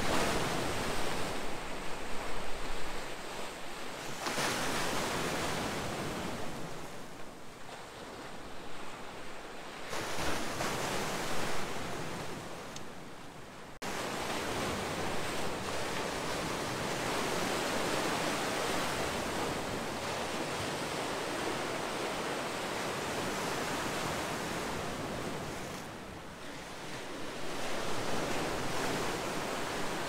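Sea surf breaking and washing against a rock breakwater: a continuous rushing wash that swells and eases as each wave breaks. The level jumps up suddenly a little under halfway through.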